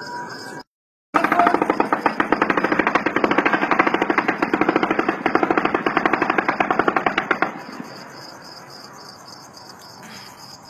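Long, unbroken burst of rapid, evenly spaced gunfire. It starts abruptly about a second in and stops about seven and a half seconds in, and it sounds like only one person shooting.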